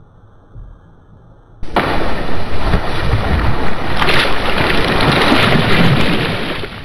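Loud water splashing as a large fish strikes a live bait at the surface and thrashes. It starts suddenly about a second and a half in, goes on heavily and cuts off abruptly at the end.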